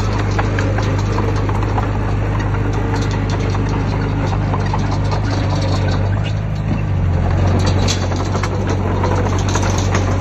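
Heavy diesel earthmoving machine running, with a steady low engine hum and constant metallic clanking and rattling. About six to seven seconds in, the engine note dips briefly and then settles at a slightly different pitch, as the load changes.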